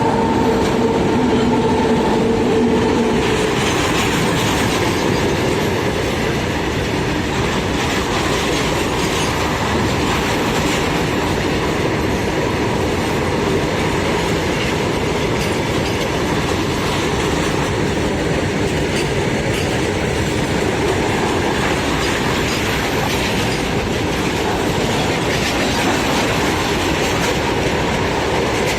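A train passing close by: loud, steady rumble and clatter of wheels over the rails. In the first few seconds the tail of its horn fades out.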